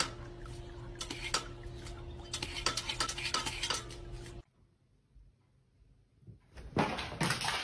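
Water spraying from a dog's pedal-operated drinking fountain as the dog steps on the pedal and snaps at the jet: many sharp clicks and clatters over a steady low hum. It cuts off about four and a half seconds in, and after a short silence a louder burst of noise comes near the end.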